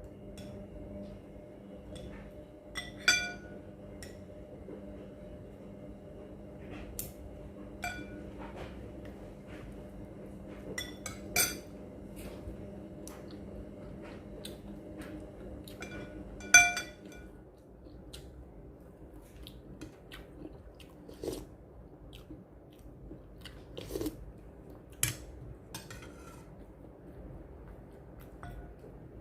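Utensils clinking against a bowl and plate while eating: a dozen or so sharp, ringing clinks at irregular intervals, two of them much louder, one a few seconds in and one past the middle, over a steady low hum.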